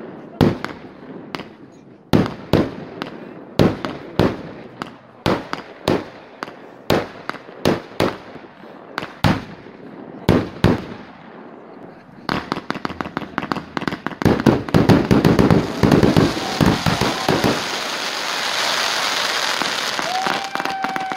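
Fireworks display: a firework battery fires shells in quick succession, sharp bangs about two a second. About twelve seconds in it turns into a rapid, dense barrage, then a steady loud hissing crackle.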